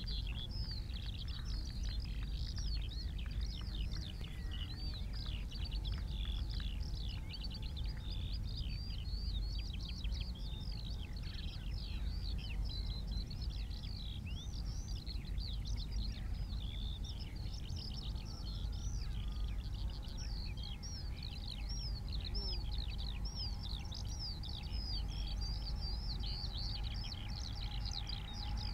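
Open-country ambience: many small birds singing and chirping without pause, with a steady low rumble underneath. A faint steady hum comes in during the last third.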